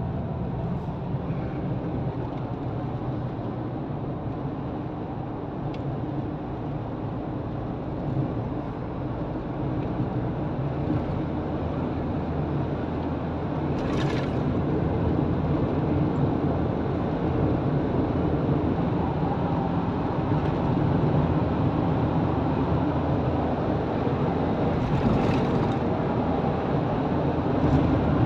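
Car cabin noise while driving: a steady low engine and road rumble that grows louder from about halfway through, with two brief hissy sounds, one about halfway in and one near the end.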